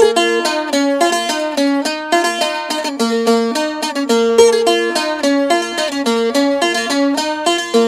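Background music on a plucked string instrument, a quick run of picked notes moving up and down in a melody.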